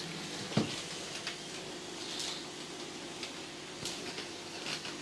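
Faint knocks and clicks of a fridge-freezer door and compartment being handled during a search, the clearest knock about half a second in.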